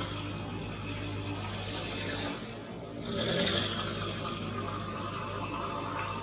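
A steady low motor-like hum over background noise. It drops out a little over two seconds in, and a brief, loud hiss follows about a second later.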